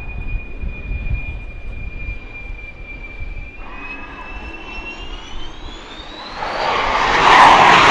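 F-14 Tomcat jet engines in a low, slow pass in landing configuration: a steady high whine over a low rumble. From about halfway the whine climbs in pitch as power is added, and a loud roar builds near the end as the jet accelerates away.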